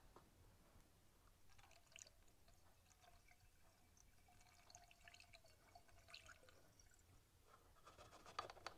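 Faint trickle of Seafoam running down a hose into an engine cylinder through the spark plug hole, with a thin steady note and small drips and ticks. This is the liquid being poured for a piston-ring soak.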